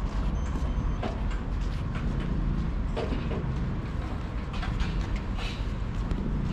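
Steady low rumble of vehicles, with a few light clicks scattered through it and a brief high beep about half a second in.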